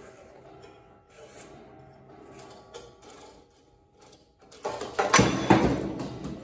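Metal clinks and clanks starting about four and a half seconds in, as the quick-change arbor lock and flange washers are worked off the spindle of a DeWalt 14-inch abrasive chop saw and set down on its steel base, freeing the cut-off wheel.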